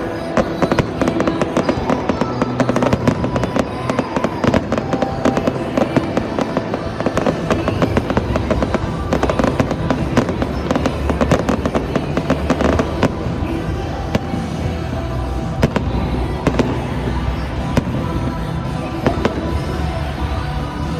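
Fireworks show: a dense, continuous run of bangs, pops and crackles, with music playing alongside.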